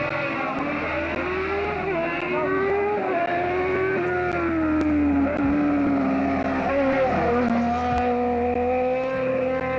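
Rally car engine running hard at high revs, its pitch rising and falling with the throttle and dropping sharply about seven seconds in, as at a gear change.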